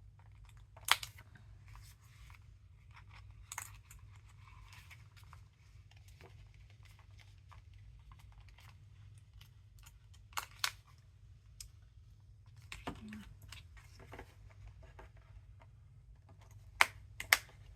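Paper and small bookbinding tools handled on a work table: scattered sharp clicks and taps a few seconds apart, with a loud pair near the end, over a low steady hum.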